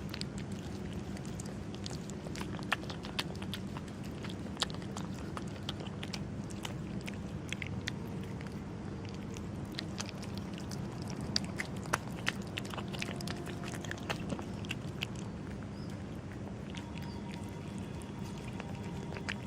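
A cat chewing and crunching food, heard as irregular small crunching clicks over a steady low background hum.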